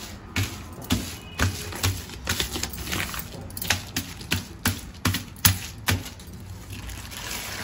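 Irregular sharp taps and clicks from kitchen work with utensils, about two a second, stopping about six seconds in.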